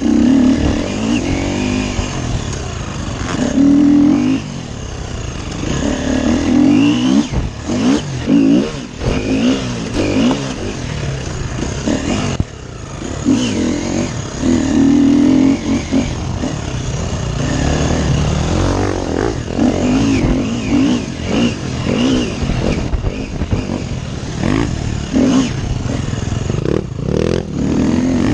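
Off-road dirt bike engine revving hard and easing off again and again as the rider works the throttle and shifts over rough sandy trail, its pitch rising and falling every second or two, with clatter from the bike bouncing over ruts.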